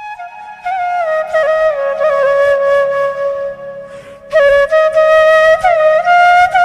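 Background music: a flute melody with sliding, ornamented notes over a faint steady low drone. It grows louder about a second in, dips briefly past the middle, then comes back loud.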